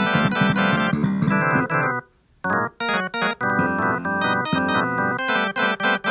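Keyboard music with organ- and electric-piano-like tones playing quick sequences of short notes, breaking off briefly about two seconds in before starting again.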